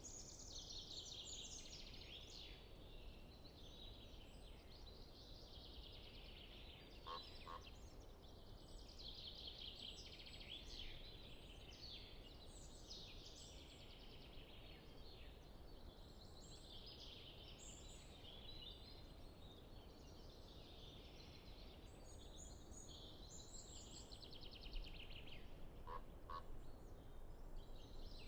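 Common chaffinch singing its song over and over, a short rapid trilled phrase every few seconds. A faint pair of lower notes comes twice, once early on and once near the end.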